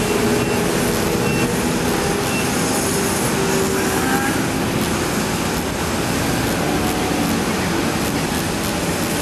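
Steady roar of roadway traffic mixed with the hum of heavy engines running.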